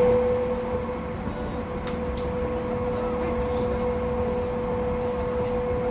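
Rubber-tyred Alstom MPL16 metro train running at a steady speed. A steady whine from the drive sits over a constant low rolling rumble, with a few faint clicks.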